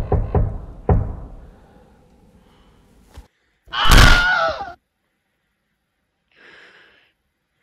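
A few dull thuds fading out in the first second, then a short loud gasp-like voice sound about four seconds in.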